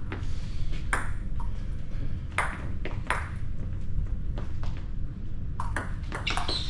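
Table tennis rally: the ball clicking off bats and table, a hit every half second to a second at first, then a faster run of clicks near the end.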